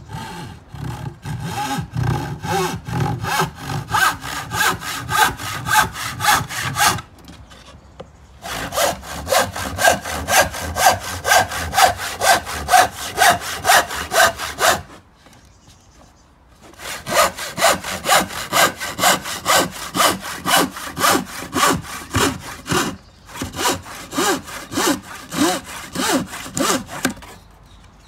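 Handsaw rip-cutting a softwood board along the grain: steady back-and-forth strokes, about two a second, in four runs with short pauses between them.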